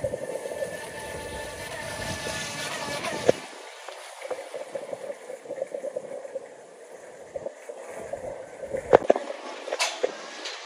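Boat engine running with water noise around the hull; the low rumble drops away after about three seconds. A couple of sharp knocks sound near the end.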